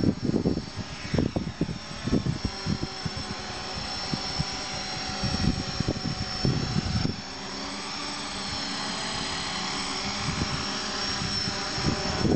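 Hexacopter's six Turnigy Park 450 brushless electric motors and propellers whirring in flight, a steady multi-toned whine that shifts slightly in pitch as the craft holds its hover. Wind buffets the microphone in gusts through the first half, then eases.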